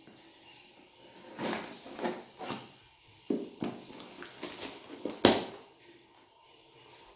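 Rustling and crinkling of a parcel's packaging being opened by hand: a run of irregular crackling rustles that starts after a short quiet, with one louder crackle about three-quarters of the way through.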